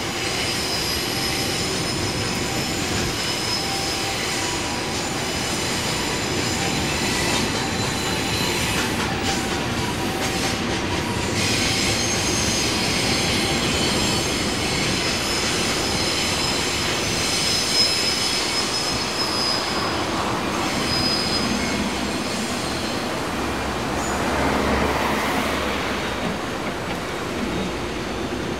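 Freight train of tank wagons rolling slowly through a rail yard, its wheels giving a continuous rumble with high-pitched squeals that come and go.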